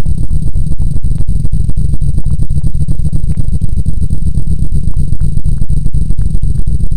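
Loud, continuous low rumbling noise that flutters rapidly, with a faint steady high tone above it: a generated low-frequency sound track meant to be played through a phone or speaker to clear humming.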